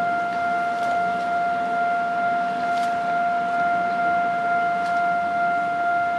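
Railway level-crossing warning alarm sounding one steady, unbroken tone. Underneath it is the rumble of passenger coaches rolling past, with a few faint clacks.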